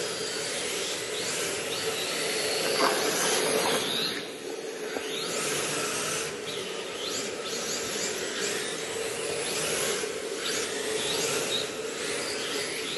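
1/10-scale rear-wheel-drive RC drift cars sliding on a smooth track: hard drift tyres scraping and hissing, with the electric motors whining up and down in pitch as the throttle is worked. A steady hum runs underneath.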